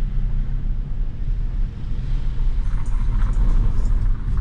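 Steady low rumble of a car on the move.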